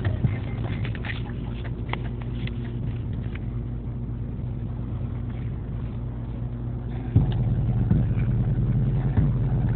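Car engine running, heard from inside the cabin as a steady low hum, with faint clicks and taps in the first few seconds. About seven seconds in it suddenly gets louder and rougher.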